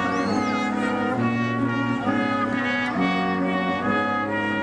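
Brass music, trumpets and trombones, playing held notes that change about once a second.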